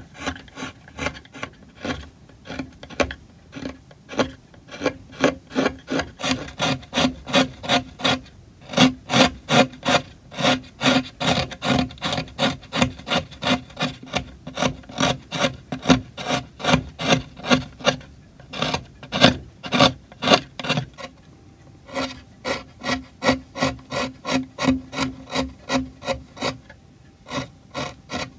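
Hand carving gouge slicing walnut in quick, regular short strokes, about three a second, with two brief pauses.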